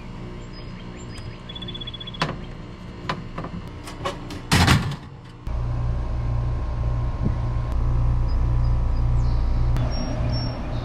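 Steady mechanical hum with scattered clicks. A loud rushing burst comes about four and a half seconds in, and soon after a louder low hum starts that throbs evenly.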